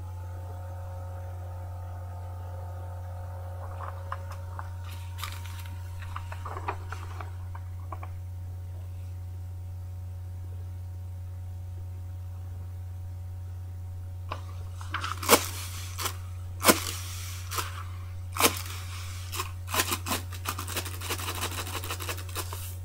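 Paper crinkling and rustling in short sharp clicks through the last third, as paper signs and a paper party blower are handled and the blower is unrolled, giving no toot. Under it, a steady low electrical hum and a faint held tone throughout.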